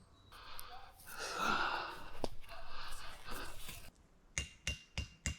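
Several seconds of rustling and scraping, then a run of sharp hammer strikes, about three a second, each with a metallic ring: a metal tent peg being driven into the ground.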